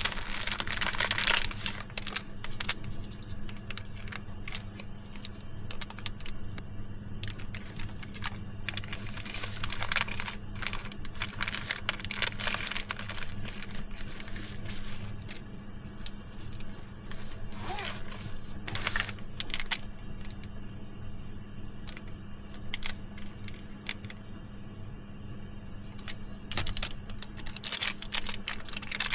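Rustling and crinkling with scattered small clicks and taps, as of things being handled close by, over a steady low hum. The rustling comes in short bursts, the strongest near the start, a few seconds past the middle and near the end.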